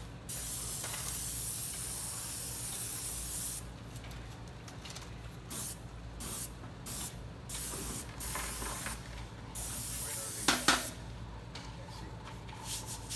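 Airless paint sprayer gun spraying paint: a steady hiss for about three seconds, then a series of short triggered bursts, with one brief louder sound about ten and a half seconds in.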